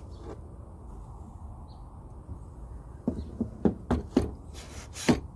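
A quick run of about six knocks and clicks, starting about three seconds in, from the fuel pump assembly being handled.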